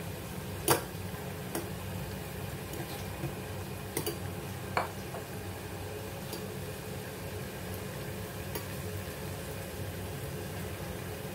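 Potato pieces frying in oil with a steady sizzle, and a few sharp clicks of a utensil against the pan, the loudest about a second in. A steady low hum runs underneath.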